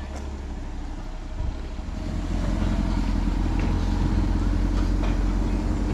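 Tourist road train's engine running with a steady low rumble, growing louder about two seconds in.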